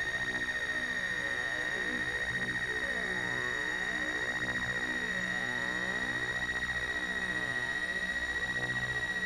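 Apple II computer-generated drone built from many harmonics (the piece uses up to 128), the sound produced by the waveform shape being drawn. A steady high tone sits over a dense shimmer of lower harmonics that swell and fade in a slowly shifting pattern, with a fast, even flutter in loudness.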